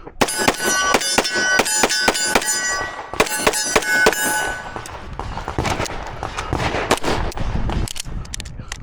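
Rapid gunshots on steel targets, each shot followed by the ring of a struck steel plate: a quick string of shots, a short pause about three seconds in, then a few more. After about four seconds the plates stop ringing and only scattered shots and noise remain.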